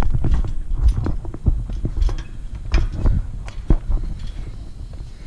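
Irregular metallic clanks and knocks from climbing a metal ladder stand, as feet and hands land on its rungs and rails, over a low rumble of handling.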